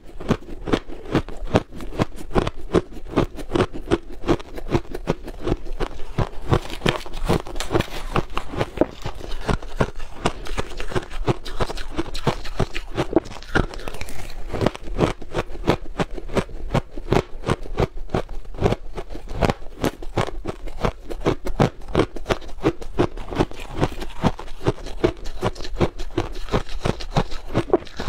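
Finely crushed ice crunching between the teeth as it is bitten and chewed, a dense run of rapid, irregular crackles.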